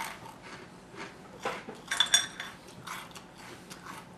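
Irregular crunching of a dry crouton being chewed, a scatter of sharp crunches.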